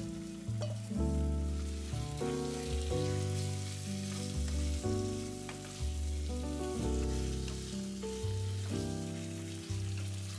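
Chunks of yogurt-marinated pork belly sizzling in a nonstick pan over fairly strong medium heat, stirred and tossed with a wooden spatula. Background music plays throughout, its notes changing about every half second.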